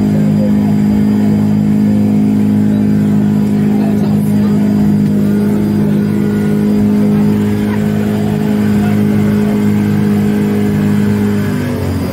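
Speedboat engine running steadily at cruising speed, its note dropping near the end as it eases off.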